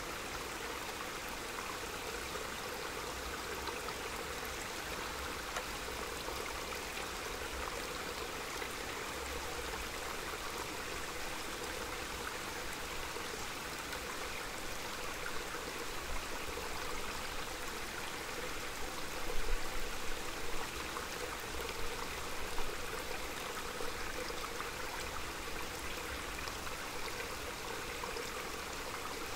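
Small forest mountain stream running in a steady rush. A few brief low rumbles come and go about two-thirds of the way through.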